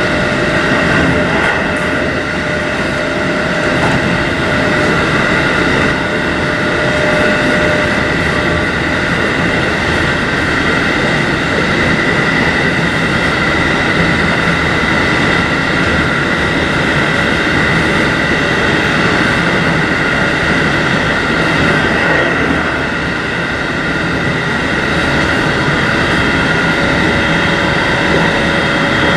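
JR Hokkaido 711 series electric multiple unit running along the line at a steady speed: continuous rail rumble with a steady high whine over it, easing off slightly for a moment about two-thirds of the way through.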